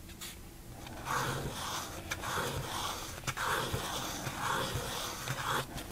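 Black pen drawing curved strokes on watercolor card, a soft scratch about once a second with a few light ticks, starting about a second in.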